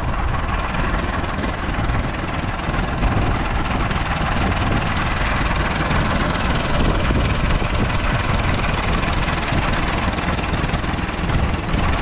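Heavy farm machinery engine running steadily, a loud, even engine noise with a strong low rumble and no change in pace.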